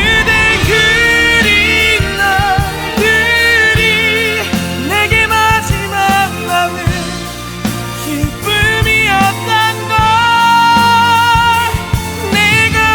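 A male vocalist belting long, high held notes with vibrato over a loud band accompaniment in a power-ballad climax.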